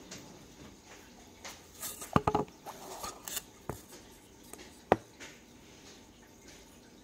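Handling noises from a coiled mosquito coil being pressed onto a small metal stand: a quick cluster of sharp clicks and taps about two seconds in, a few lighter scrapes, then one more sharp click about five seconds in.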